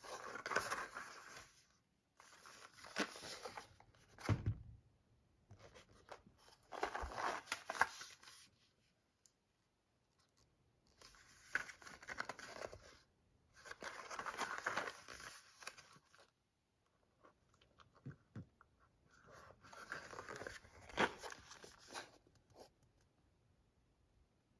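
Small cardboard ammunition box handled and turned in the hands while its end flap is pried open. The scraping and tearing rustles of the cardboard come in about six bursts of a second or two, with short pauses between them.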